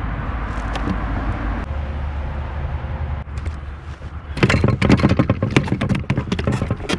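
A steady low rumble, then from about four seconds in a couple of seconds of rapid clicking, knocking and rattling: a bass being handled on a measuring board in a kayak.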